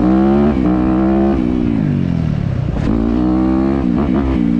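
Dirt bike engine revving hard as it rides off, its pitch holding, dropping and climbing again several times.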